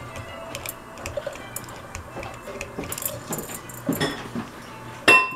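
Small metal parts and tools clinking and rattling during hands-on repair work. About five seconds in, a sharp metal clank rings briefly.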